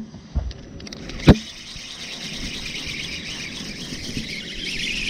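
Fishing reel whirring steadily for several seconds, starting after a sharp knock about a second in.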